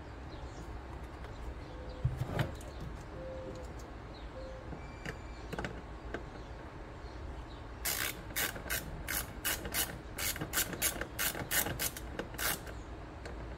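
Hand ratchet clicking in a run of quick strokes, about fifteen sharp clicks over four seconds starting a little past halfway, as a nut on the wiring is turned; a few light knocks of handling come earlier.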